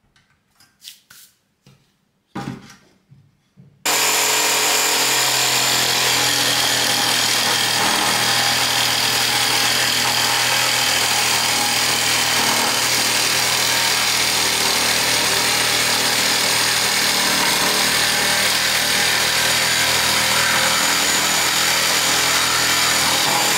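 A few light clicks, then about four seconds in a jigsaw mounted upside down under a jigsaw table starts suddenly and runs steadily as its blade cuts through a thick piece of laminated chipboard.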